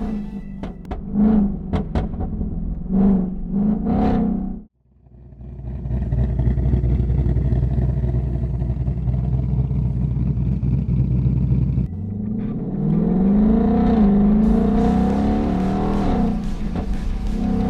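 A 2020 Ford Mustang's engine, exhausting through an H-pipe with the resonator deleted. It is revved in three short blips, then drones steadily, then rises in pitch as it accelerates about twelve seconds in, with the revs wavering afterward. The sound changes abruptly twice, as at edits.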